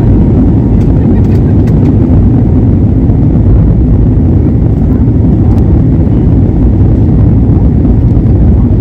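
Jet airliner at takeoff power, heard from inside the cabin: a loud, steady rumble of engine and runway noise through the takeoff roll and liftoff.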